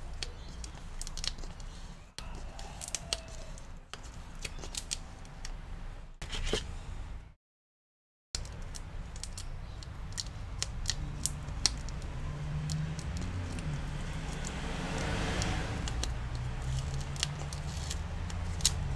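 Small sharp clicks and taps from a thin tool working at the bottom edge of a laptop LCD panel, with a longer scrape in the second half, over a low steady hum. The sound drops out completely for about a second near the middle.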